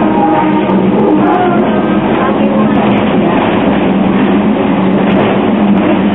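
Narrow-gauge Hong Kong double-deck tram running along its street track, heard from just behind the driver inside the car: a loud, steady running noise of wheels on rail with a low hum underneath.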